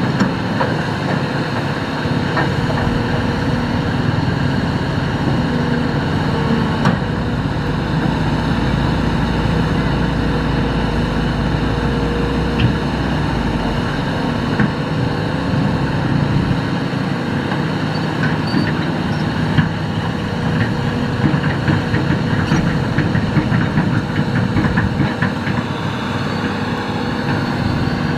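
Hitachi excavator's diesel engine running steadily under work, with a deeper rumble through the first half and a few short knocks scattered through.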